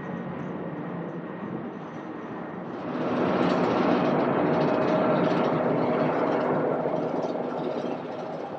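Jet airliner engine noise: a steady rush that grows markedly louder about three seconds in, with a steady whine over it, and eases off near the end.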